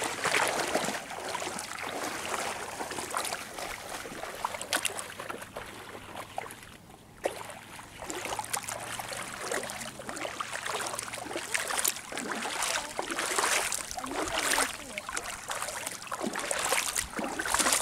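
Shallow lake water sloshing and splashing unevenly as two hooked perch are pulled in through the shallows toward the bank.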